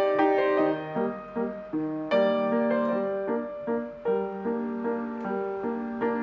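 Background piano music: a gentle melody of single notes and chords, each note fading after it is struck.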